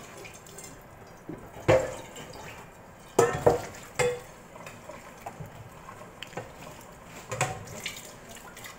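Wire cooking rack knocking and clinking against a stainless steel roasting pan as it is set in place and adjusted: a few sharp metallic clanks with a short ring, several together about three seconds in and one more near the end.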